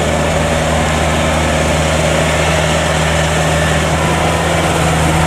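Kubota DC70 combine harvester's diesel engine running steadily with a constant low hum.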